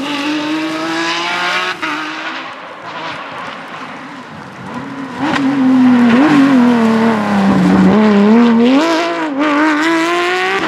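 Porsche 911 GT3 rally car's flat-six engine working hard, revs climbing and falling with throttle and gear changes. It is quieter for a few seconds, then loud from about halfway, the pitch sagging low and climbing again.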